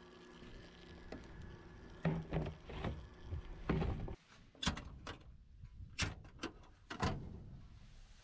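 Scattered knocks and clunks of handling, then three sharp metallic clicks or bangs about a second apart, from the latched steel door of a center-pivot irrigation control panel being worked open.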